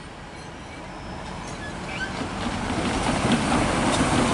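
A van driving past close by, its tyre and engine noise building steadily as it nears.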